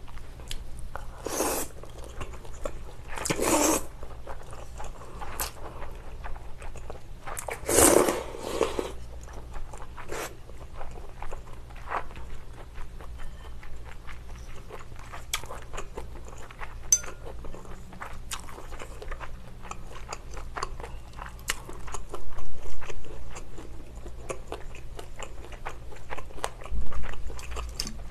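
Close-miked eating: a person slurps cold naengmyeon noodles and broth from a bowl, three long slurps in the first eight seconds or so, then chews with many small wet clicks.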